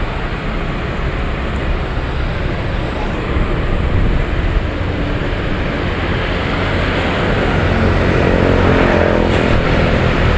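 Steady rumble of street traffic, with an engine's hum coming up in the last few seconds, mixed with the rushing air of a woven bamboo fan waved quickly over a charcoal satay grill.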